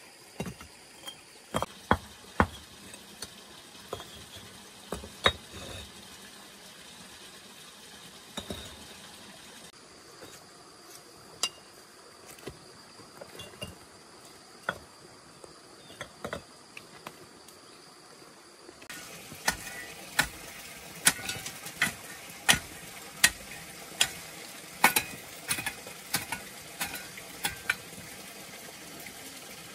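Hollow fired-clay bricks knocking and clinking against each other as they are picked up and stacked by hand, in sharp separate knocks. About two-thirds in, the knocks become louder and quicker, roughly two a second.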